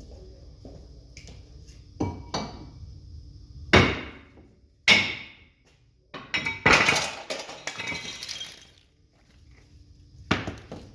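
Metal tools and parts striking and clanking during brake work: a few sharp ringing knocks, the two loudest about a second apart, then a few seconds of clattering and scraping, and one more knock near the end.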